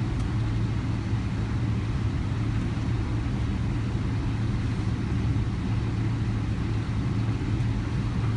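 Steady low rumble inside a Boeing 777's cabin as the airliner rolls along the ground, with the engines near idle: an even, unchanging drone.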